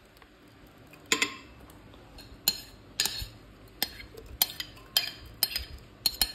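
Frozen mixed berries spooned from a bowl into a glass blender jug: a run of sharp clinks and taps from the spoon on the bowl and the frozen berries dropping onto the glass. About nine of them, starting about a second in and coming faster near the end.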